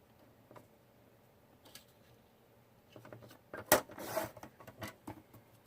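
Paper and craft tools being handled on a table while a strip is trimmed down. There are a few faint taps, then a sharp click about three and a half seconds in, followed by a second of paper rustling and a few lighter clicks.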